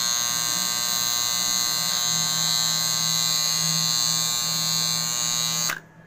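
AC magnetic contactor buzzing loudly while energised, a steady electrical hum with a harsh edge, which cuts off abruptly near the end.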